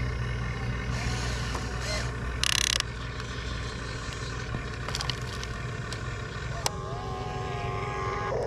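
Radio-controlled construction models at work: electric motors and plastic gearboxes whirring steadily, with scattered clicks and a short loud hiss about two and a half seconds in.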